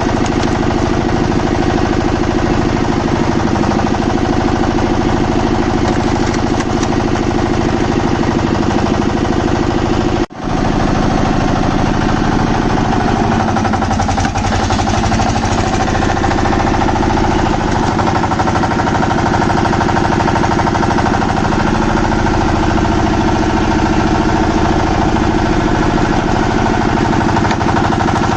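Engine of a wood-cutting machine running steadily with a fast, even pulsing beat. It breaks off for an instant about ten seconds in, then carries on with a slightly different tone.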